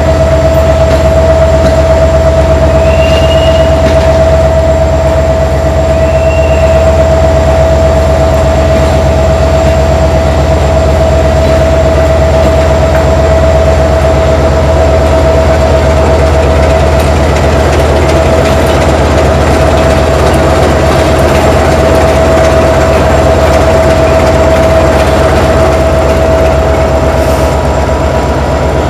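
Railway locomotive running close by as it moves slowly through the station, a loud steady drone with a constant humming tone.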